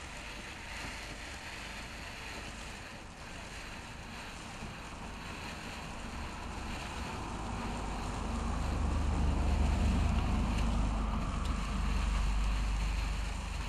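Ground fountain firework spraying sparks with a steady hissing rush, swelling louder from about halfway through with a deep rumble.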